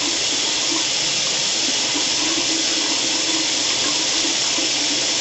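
Water running steadily from a tap into a sink, an even rushing hiss with no breaks.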